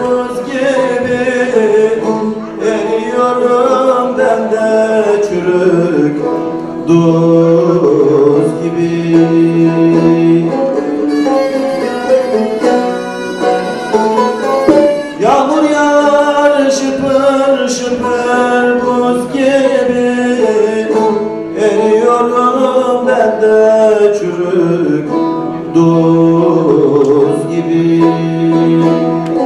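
Turkish folk song performed live: a man singing while strumming a bağlama (long-necked saz), with a bowed fiddle playing along.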